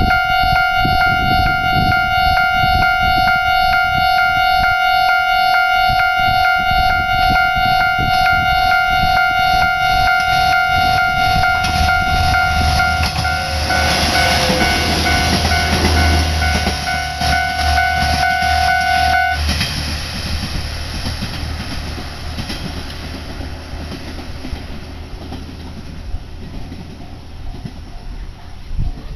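Level-crossing warning bell ringing in a rapid, even pulse while a diesel railcar passes, with a low engine rumble and wheel noise swelling about halfway through. The bell cuts off suddenly once the train has cleared, and the train noise fades away.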